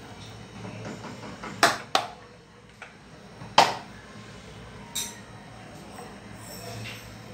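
Kitchen items being handled and set down: four sharp clicks and knocks, the loudest two about one and a half and three and a half seconds in, over a faint steady hum.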